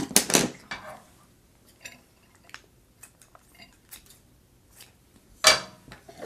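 Metal utensils clinking against dishes, with a burst of clinks in the first second and a few soft clicks after it. About five and a half seconds in comes a loud clatter as tongs and kitchen scissors work in a metal sheet pan of braised short ribs.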